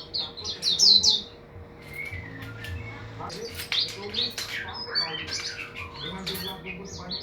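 A bird chirping: a quick series of short, high chirps, about three a second, in the first second or so. After a short pause come looser, more varied chirps and calls.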